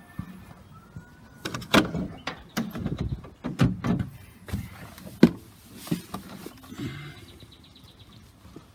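A Chevrolet Express van's door being opened with a clunk, then a run of knocks and clatters over several seconds.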